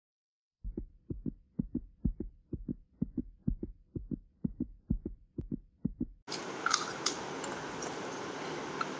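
Heartbeat sound effect: low double thumps, about two a second, that stop abruptly about six seconds in. A steady hiss with a few faint clicks follows, as a hand mixes rice and dal on a steel plate.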